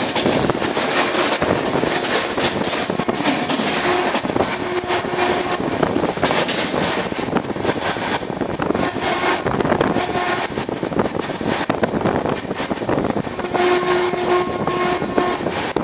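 Freight train of covered goods wagons passing close by: steady rumble and clatter of wheels on the rails. A pitched tone comes and goes over it several times, loudest near the end.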